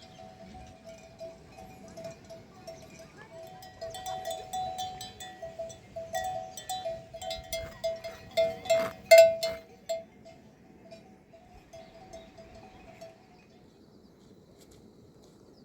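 Livestock bells clanking irregularly, as from moving goats or cattle. The clanks grow busier and louder toward the middle and die away about three-quarters of the way through.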